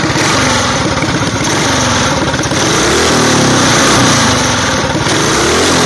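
Modified single-cylinder small engine with a cone air filter running and being revved by hand at the throttle lever, its speed rising and falling a few times. A strong-sounding run with instant throttle response.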